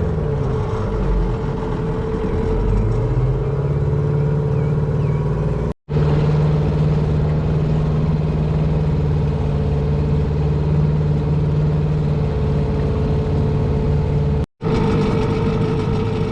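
Outboard motor pushing a small aluminium boat along: its pitch dips, then climbs as the throttle opens about three seconds in, and then holds steady at speed. The sound cuts out briefly twice.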